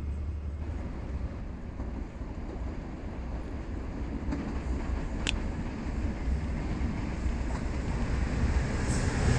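Freight train rumbling along the track, growing louder toward the end as it comes closer, with one sharp click about halfway through.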